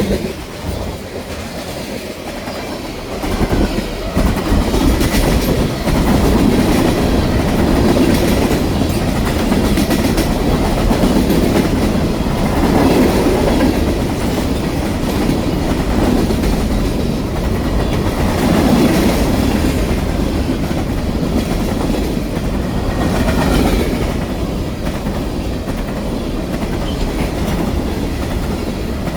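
Freight train cars rolling steadily past on the rails, the noise swelling and easing every few seconds as the cars go by.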